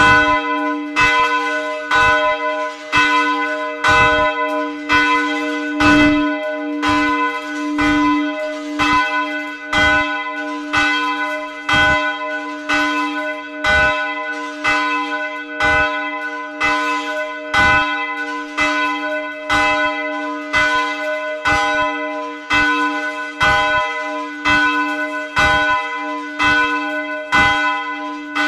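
The middle bell of St. Paul's church in Magyarkanizsa swinging and being struck by its clapper about once a second, heard close up in the bell tower. Each stroke rings on into the next.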